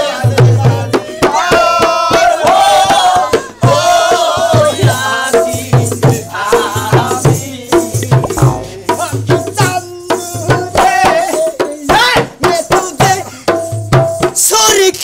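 Folk dance music: a hand-played dhol drum beats a steady rhythm under singing, with rattling percussion.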